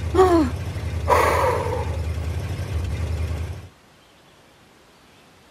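Cartoon car's engine running with a low, pulsing rumble, with a short strained grunt near the start and a breathy, effortful sigh a second later, as the car hauls a heavy load of bricks. The rumble cuts off suddenly about three and a half seconds in, leaving only faint background.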